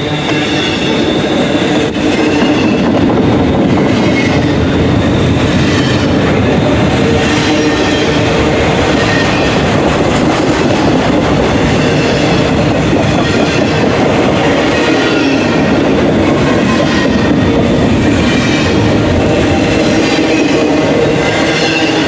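Intermodal freight train's container well cars rolling past close by, a steady loud rumble of steel wheels on rail with clicking over the rail joints. A thin high wheel squeal comes and goes.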